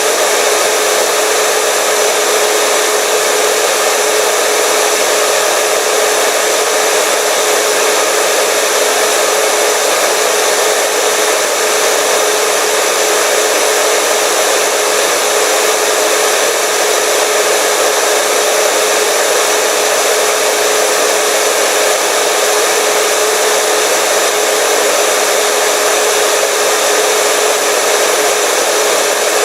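Hair dryer running steadily: a constant rush of air with a steady motor hum underneath.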